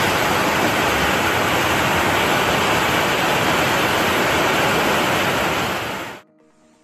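Muddy floodwater rushing through a swollen river, a loud, steady rush that cuts off suddenly about six seconds in.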